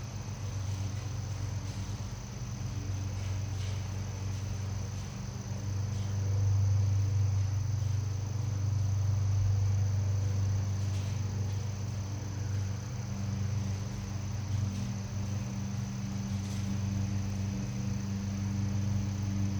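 Steady low hum with a thin, high steady whine above it, a little louder through the middle, with a few faint clicks.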